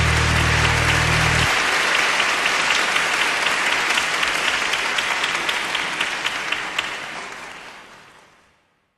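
Audience applause, a dense wash of clapping that fades away near the end. Under it, the music's last low chord holds and stops about a second and a half in.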